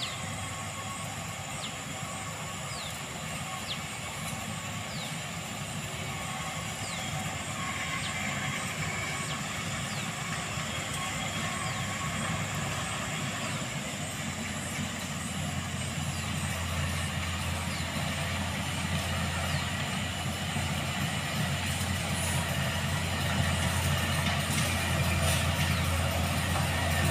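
Motor grader's diesel engine running as it approaches, growing steadily louder, with its low drone strengthening about halfway through.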